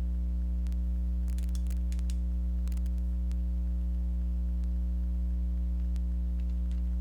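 Steady low electrical mains hum with its overtones, with a few faint small clicks and taps scattered through it.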